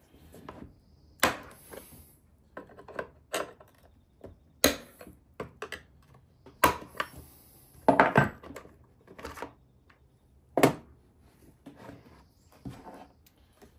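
Scattered sharp clicks, knocks and clatters, about a dozen, with the loudest several seconds apart, from hand work on a Stihl MS 261 C chainsaw as its clutch cover is taken off: tools and parts being handled and set down.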